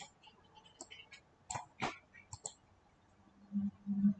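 Several irregular computer mouse clicks while parts are being selected in CAD software. A faint low hum comes in near the end.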